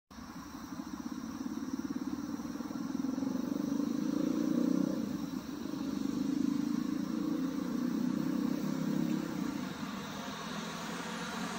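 A motor vehicle's engine running in the street, building over the first few seconds and easing off near the end.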